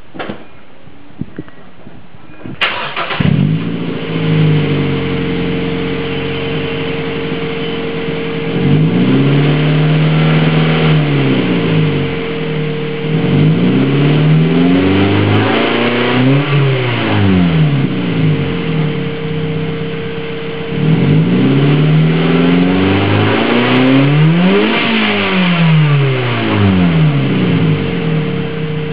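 2005 Mazda3's 2.0-litre four-cylinder engine starting about two and a half seconds in, heard at the tailpipe of a Remus cat-back exhaust with the resonator deleted. It settles to a steady idle and is then revved up and let back down several times.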